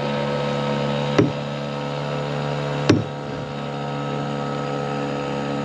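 Boat's outboard motor running at a steady drone, with two short knocks about a second and three seconds in.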